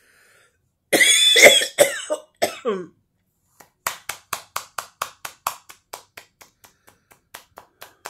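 A woman's coughing fit, several harsh chesty coughs clearing her throat, then a steady run of light hand slaps, about four a second and slowly fading, as she pats her chest.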